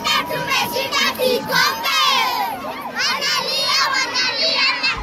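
A crowd of children shouting and cheering in celebration, many shrill voices overlapping.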